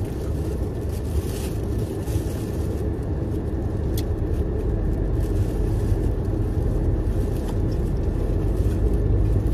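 Car cabin road noise from a car being driven: a steady low rumble of engine and tyres. There is one brief click about four seconds in.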